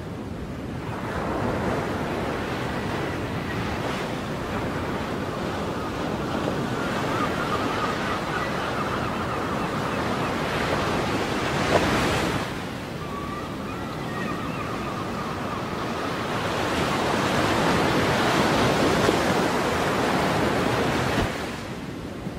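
Ocean waves washing in and breaking, the surf rising and falling in long swells, one crashing about halfway through, with wind. Faint drawn-out calls, as of seagulls, come twice.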